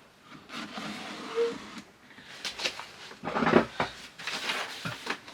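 Plywood drawer sliding in and out of its plywood carcass, wood rubbing on wood with a few light knocks, as the drawer's fit is tried.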